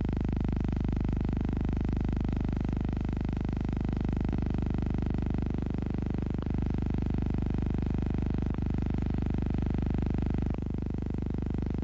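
Steady electrical hum and buzz with many overtones, the noise of a silent film's transfer rather than anything in the scene. Several faint clicks mark the film's splices, the last one about two-thirds of the way through, where the hum drops slightly in level.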